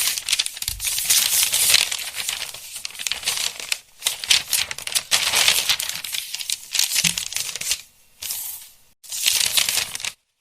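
Paper pages of a book rustling as they are handled and turned, in several long bursts separated by brief pauses.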